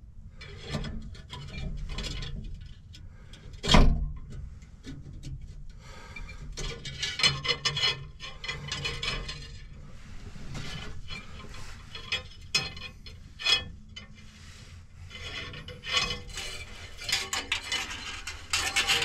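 Thin wire being uncoiled and bent by hand, scraping and rubbing with small clicks, while a terracotta flower pot and its saucer are handled; a sharp knock about four seconds in is the loudest sound.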